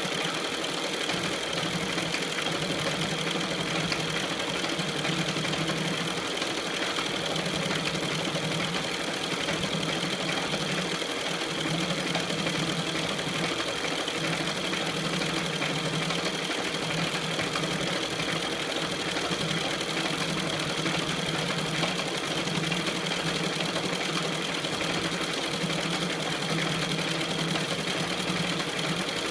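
KART E1N metal lathe running steadily, its motor and gearing giving an even hum with a steady high tone over it.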